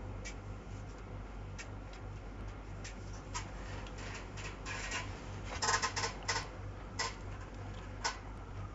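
Scattered light clicks from someone working at a computer, with a quick run of several clicks about six seconds in, over a low steady hum.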